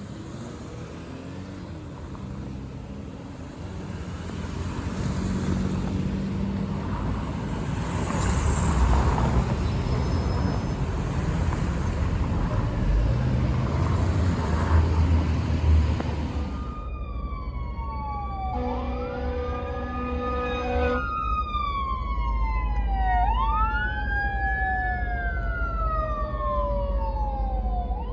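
Fire truck rumble and road noise, then, after an abrupt change about two-thirds in, sirens: one tone sliding slowly down in pitch and another wailing up and down. Near the middle of the siren part a fire truck air horn blasts steadily for about two and a half seconds.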